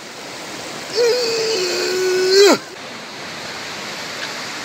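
A fast, muddy river rushing steadily over stones, with a person's long drawn-out vocal cry about a second in that holds one pitch for about a second and a half, then drops off sharply.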